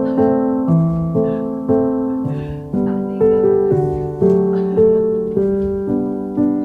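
Background piano music: gentle notes and chords struck about twice a second, each fading before the next.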